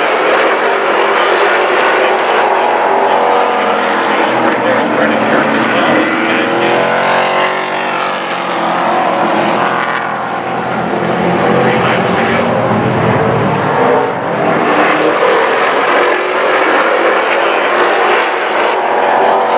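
Pro Truck race trucks' engines running hard at racing speed, loud, with the engine pitch swelling and falling as the trucks go by, most strongly about seven seconds in.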